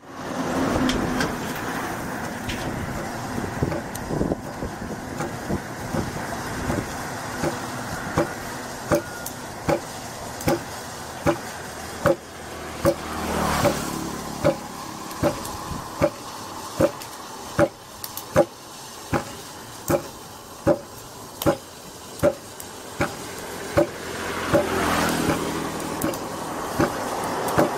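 Wooden foot-operated lever pestle thudding into its mortar in a steady rhythm, a little over one stroke a second, pounding freshly cooked rice into flat flakes. Highway traffic passes, louder about halfway through and again near the end.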